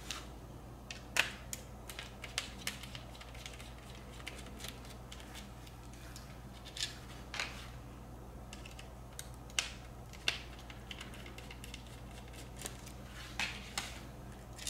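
A small T9 Torx screwdriver turning out the screws that hold the LCD display to a Mercedes W220 instrument cluster board: irregular light clicks and ticks of the driver on the screws and of the plastic-framed board being handled, the sharpest about a second in.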